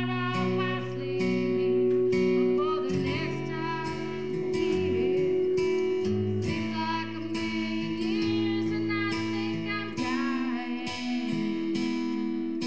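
Music: a singer, with guitar accompaniment over held low notes.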